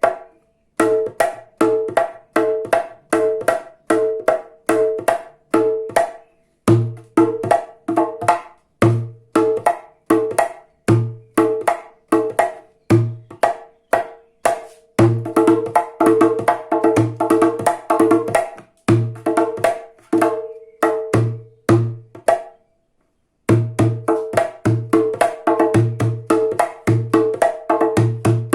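Small djembe hand drum played in the Arab, darbuka-like way: a steady rhythm mixing deep bass "doom" strokes with sharp, ringing "tack" strokes, pausing briefly three times.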